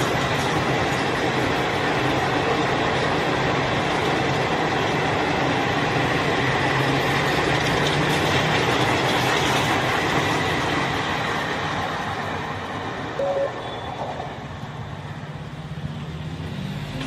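Express passenger train's coaches running past close by: a steady rail rumble and wheel clatter that fades after about ten seconds. There is a short tone about thirteen seconds in.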